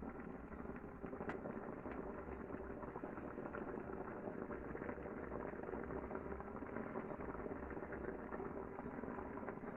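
Homelabs handheld clothes steamer running, giving off a steady hiss of steam with a faint low hum underneath.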